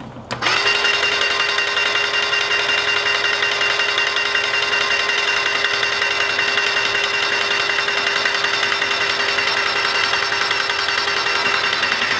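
Titan 440 Impact airless paint sprayer running steadily at a constant pitch, its pump pushing diluted antifreeze out through the spray gun to flush and protect the machine for storage. It starts about half a second in.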